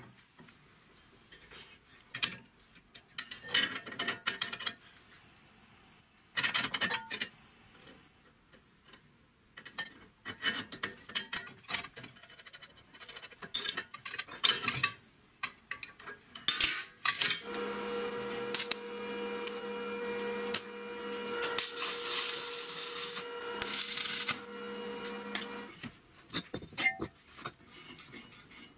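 Steel parts clinking, knocking and scraping as an angle grinder is fitted and clamped into a welded steel bracket. Past the middle, a steady mechanical hum runs for about eight seconds and stops abruptly.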